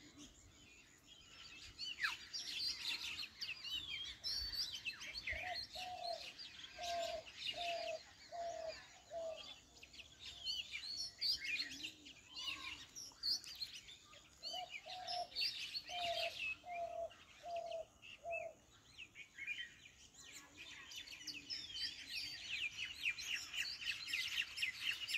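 A chorus of small birds chirping and twittering. A lower, hooting note is repeated in two runs of about six notes each, one a quarter of the way in and one past the middle.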